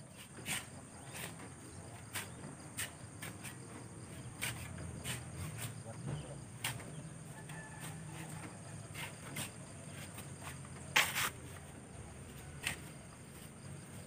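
Steel shovels scraping into a sand pile and sand being tossed into a wooden truck bed by hand: irregular scrapes and swishes every second or so, the loudest about eleven seconds in.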